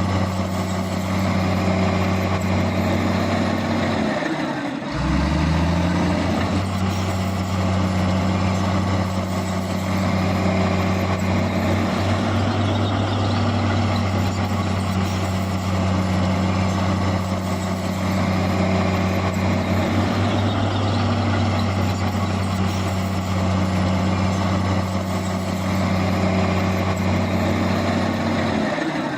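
Heavy diesel engine of earthmoving machinery running steadily at high revs. About four seconds in the revs drop briefly, then quickly climb back up.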